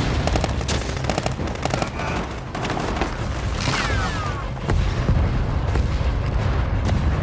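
Battle sound effects: rapid gunfire over a heavy rumble of explosions, with louder bomb blasts from a danger-close airstrike about halfway through.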